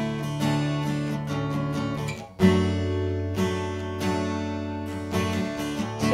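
Takamine acoustic guitar in open D tuning strummed through D5, D/F# and Dsus2/A chords, ringing between strokes. The strumming breaks off briefly about two seconds in, then comes back with a strong strum.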